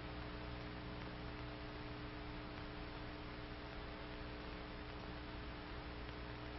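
Low, steady electrical hum with a layer of hiss and nothing else: the background noise of an old 1960s film soundtrack.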